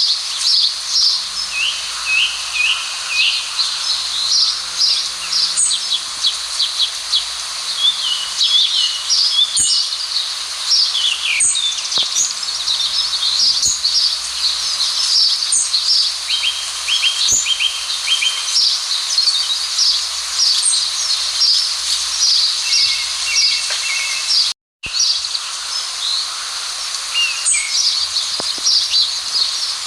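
Many small birds chirping and trilling in quick, high notes over a steady outdoor hiss. The sound drops out completely for a moment about 25 seconds in.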